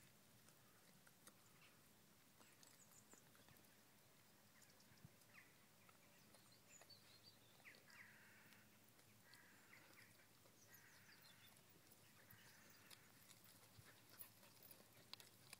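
Faint crunching and gnawing as a whippet chews a corn cob, with a few short crunches spaced a second or two apart in the second half.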